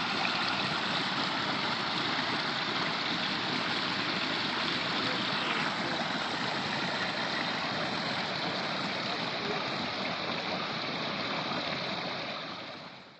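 Water running and splashing steadily down the rock falls of a backyard pondless waterfall; it fades out near the end.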